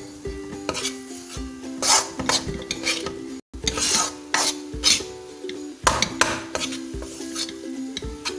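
A metal spoon scraping and knocking against a non-stick kadai as thick choux pastry dough is stirred and pressed on the stove, in irregular strokes.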